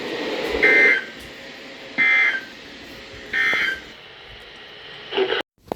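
EAS end-of-message data bursts: three short, raspy digital warbles about 1.4 s apart, over steady radio hiss. There is a brief drop in the audio near the end.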